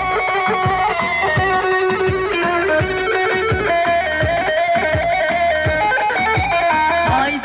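Kurdish halay dance music: a plucked-string melody stepping over a steady drum beat, with no singing.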